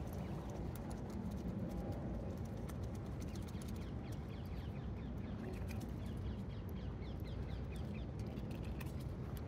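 Rain falling, heard as a steady hiss with scattered drop clicks, with a run of short, high bird peeps falling in pitch through the middle.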